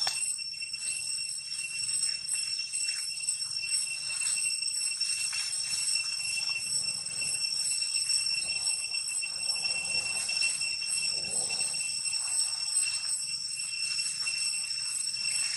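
Steady high-pitched insect drone, a continuous shrill ringing with a slight pulse, with faint scattered rustles underneath.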